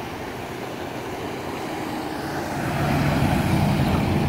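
Road traffic passing close by: cars crossing the tracks, then a pickup truck whose engine gets louder about two and a half seconds in as it drives past.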